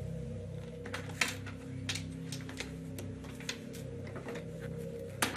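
Soft background music of low, held notes, with scattered faint clicks over it and a louder click near the end.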